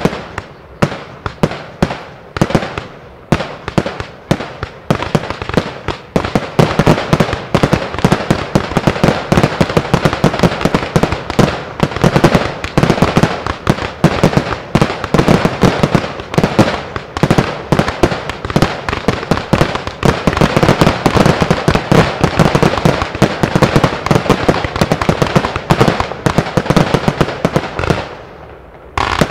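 Fireworks display: aerial shells and cakes going off in a dense, rapid run of bangs and crackles, easing off briefly near the end.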